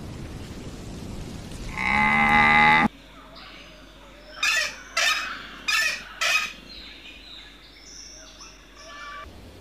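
A camel's long call, held for about a second and cut off suddenly. Then four short, harsh calls about half a second apart, with faint high bird chirps after them.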